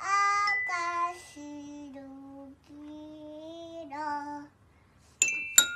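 A toddler singing a few long, held notes, then two notes struck on a toy piano near the end, ringing on.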